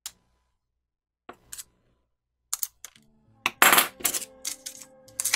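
Metal hand tools (scissors and a scalpel) clattering and clinking against a plastic cutting mat, with paper templates rustling. Soft background music with steady notes comes in about three seconds in.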